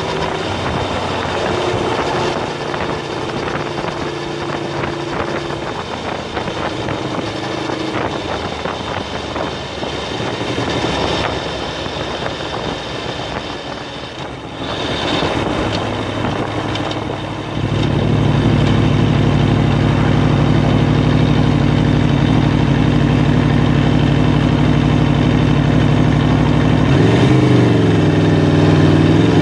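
Aprilia Tuono V4 Factory's V4 engine running under way. About two-thirds through it gets suddenly louder and holds a steady pitch, and near the end its pitch dips briefly and rises again.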